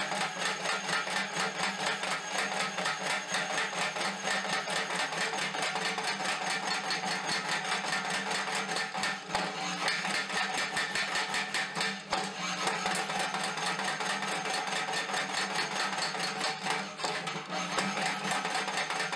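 Small homemade anvil-mounted power hammer (the Hardy Hammer) running, its ram striking red-hot mild steel bar stock on a bottom die in a fast, steady rhythm over a steady hum, as a tong jaw is forged. The blows break off briefly a few times.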